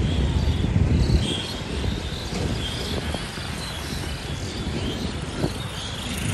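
Roadside traffic ambience: a low rumble of passing vehicles, heaviest in the first second, with short high chirps repeating throughout and a single brief tap about five seconds in.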